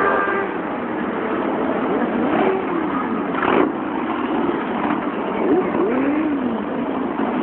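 Several motorcycles riding past in procession, engines running with repeated revs that rise and fall in pitch over a continuous exhaust noise.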